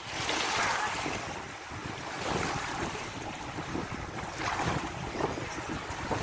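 Small waves washing in over a shallow, muddy shore, swelling and fading every couple of seconds, with wind buffeting the microphone.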